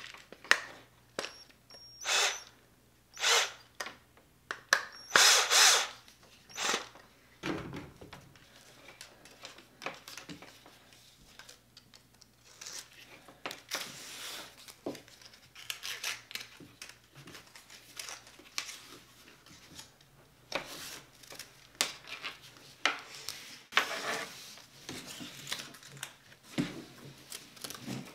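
A cordless drill driving screws, with several short bursts in the first six seconds, the last the longest. It is fixing a 3D-printed bracket to a hand fuel pump. After that come quieter clicks and scratchy rustling as a Velcro strap is threaded through the bracket and pulled around a plastic fuel can.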